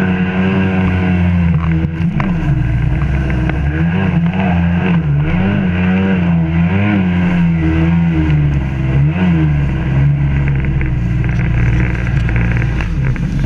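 Sea-Doo GSX 800 personal watercraft's Rotax 787 two-stroke twin running under way. The engine holds steady at first, then its pitch rises and falls again and again, with the rush of water along the hull underneath.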